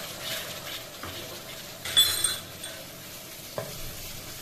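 Spice masala of onion, ginger-garlic paste and ground spices sizzling in oil in an aluminium kadai as a wooden spatula stirs and scrapes it through, the stage where the masala is fried until the oil separates. About two seconds in the spatula knocks the pan with a sharp ringing clink.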